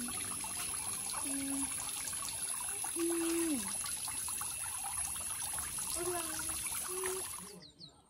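Small garden-pond fountain pump spraying water that patters and trickles back onto the pond surface, a steady fine splashing that cuts off suddenly near the end. A few short low tones sound faintly behind it.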